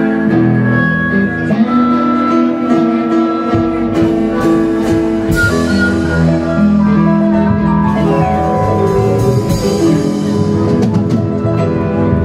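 A live blues band playing an instrumental passage: electric guitar, keyboard, upright bass and drums, with harmonica. The low end gets fuller about three and a half seconds in.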